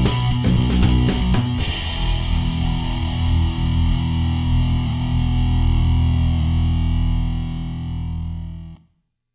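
Rock music with distorted electric guitar: fast strummed chords, then a long held chord that rings out and fades until it stops abruptly near the end.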